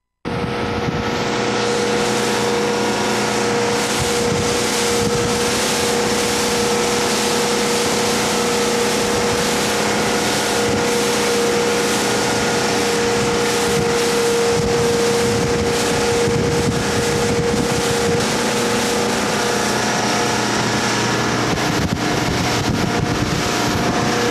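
Motorboat engine running steadily under way, a constant drone mixed with wind and water rush. The engine note shifts slightly near the end.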